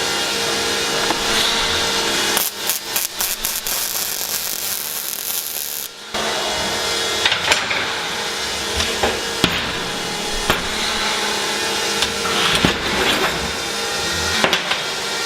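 Electric welding arc hissing and crackling while steel plates are tack-welded together, with short metal knocks. The sound cuts off abruptly about six seconds in, then starts again.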